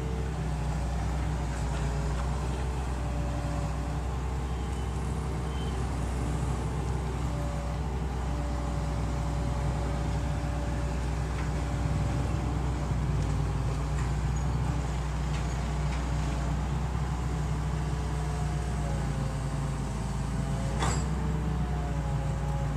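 Hitachi EX200-2 hydraulic excavator's diesel engine running steadily, with a higher whine that steps up and down in pitch every few seconds as the machine works. There is a sharp click about 21 seconds in.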